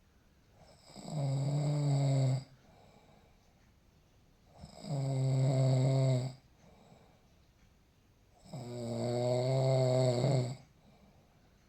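A sleeping man snoring: three long snores, each lasting about two seconds and coming roughly every four seconds, with lulls between them.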